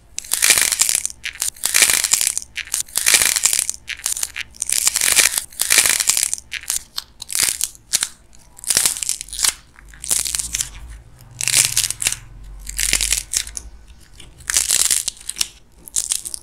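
Dried clay egg crackling as fingers squeeze and crush it, its hardened surface cracking over the soft clay inside. It comes in repeated crackly bursts, about one a second.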